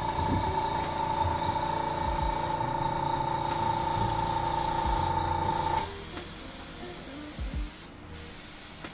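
An airbrush spraying paint in a steady hiss, cut off briefly three times: about two and a half seconds in, around five seconds, and near the end.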